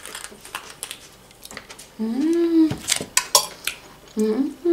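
A fork and the ketchup packaging clicking and scraping against a ceramic plate as pasta is served. Twice, about two seconds in and near the end, there is a short wordless hum from the eater.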